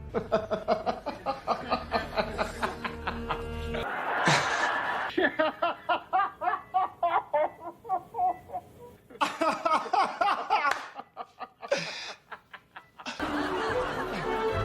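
Bursts of laughter, rapid repeated ha-ha pulses, over background music, broken by abrupt cuts. A short noisy burst comes about four seconds in.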